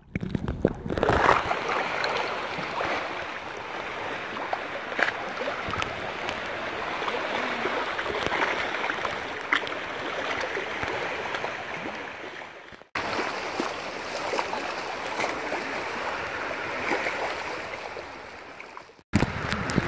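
Steady wash of shallow sea water lapping at the shore, an even hiss with no distinct strokes, cut off briefly twice.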